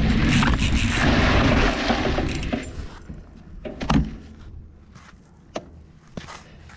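Mountain bike rolling over a dirt trail with a steady rush of tyre and wind noise, which fades away about three seconds in as the bike comes to a stop. Then a quiet stretch with scattered clicks and knocks, the loudest about four seconds in.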